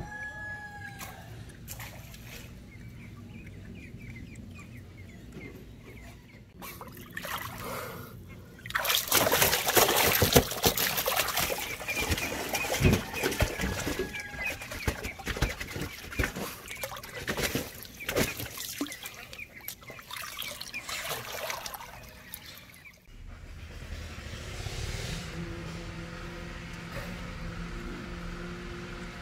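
Water splashing and sloshing, irregular and loudest from about nine to twenty-three seconds in, then dying down to a low steady hum.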